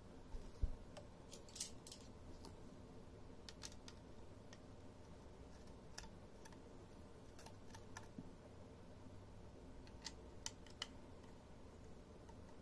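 Scattered small metallic clicks and ticks of a screwdriver working the screws of a 2.5-inch hard drive's metal mounting bracket, with a dull thump under a second in.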